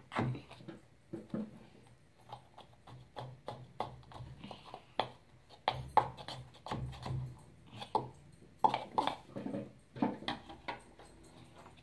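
Irregular clicks and taps of a spoon and fingers against a plastic funnel and bottle, as baking soda is scooped into the funnel and poked down its neck. The sharpest taps come about six and nine seconds in.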